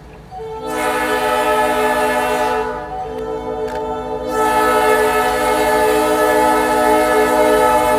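Train air horn sounding a chord of several notes. A long blast starts about half a second in and eases off near three seconds, then the horn swells again into another long blast from about four seconds on.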